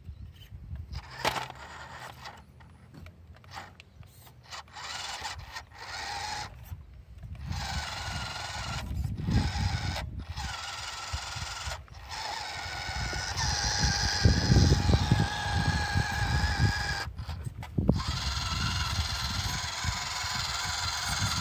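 Electric motor and gear train of a WPL radio-controlled Toyota 4x4 rock crawler whining as it climbs over rock. The whine wavers in pitch, grows louder in the second half and cuts out briefly several times, over a low rumble.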